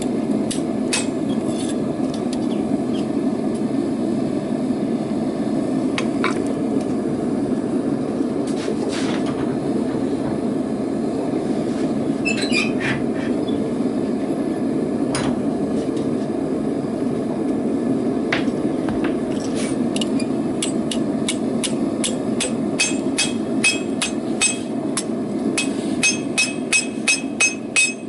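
Hand hammer striking hot rebar on an anvil: a few scattered blows, then from about two-thirds through a fast, regular run of ringing strikes, two or three a second. A steady rushing noise runs underneath.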